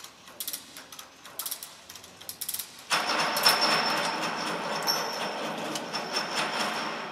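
Ratchet of a cargo lashing tensioner being worked, a cluster of sharp clicks about once a second. About three seconds in, a louder steady mechanical noise with a faint high whistle starts suddenly and goes on.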